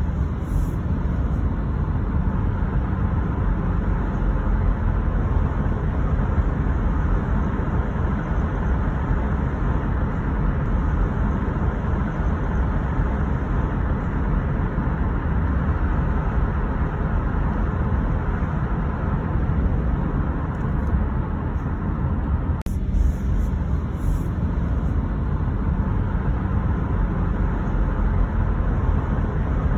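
Steady road noise of a car driving at speed: tyre and engine hum, heaviest in the low end, at an even level. A brief break in the noise comes about 23 seconds in.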